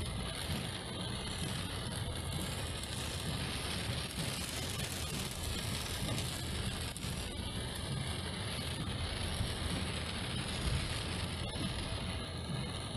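Car driving in the rain: a steady low rumble of engine and road noise under an even hiss of wet tyres and rain.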